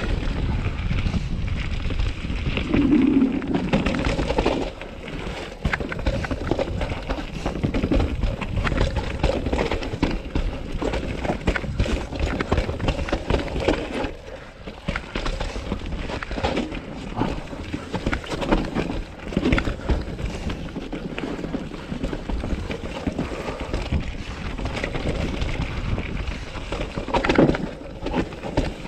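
2020 Norco Sight mountain bike descending a dirt trail: tyres rolling over dirt, rocks and roots, with a constant clatter of rattles and knocks from the bike and a rumble of wind and ground noise. There is a louder knock near the end.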